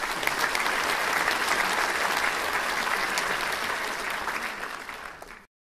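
Audience applauding: a dense patter of many hands clapping that tapers slightly, then cuts off abruptly near the end.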